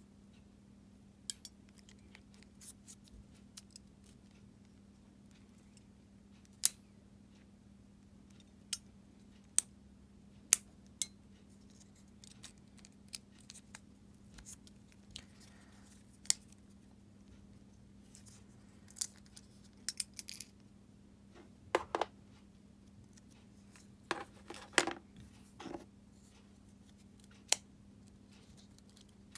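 Small hard plastic parts of a Fiat 500 flip-key fob and its metal key blade clicking and tapping as they are handled and fitted together. The clicks are sharp and scattered, with short flurries about 20, 22 and 25 seconds in.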